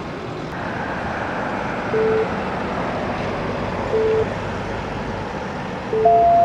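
Steady engine noise from an idling truck, with a short beep about every two seconds and a louder, higher, longer beep near the end.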